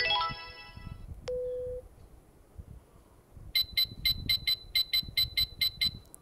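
Custom keyboard key-press sound effects. A chime-like tone fades at the start, a short beep follows about a second later, and then a quick run of about a dozen identical short electronic blips, roughly five a second, as keys are tapped in quick succession.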